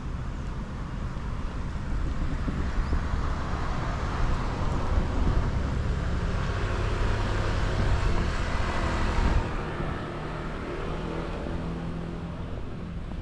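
Road traffic: a vehicle passing on the road, building up over several seconds and dropping away about nine seconds in, over wind buffeting the microphone.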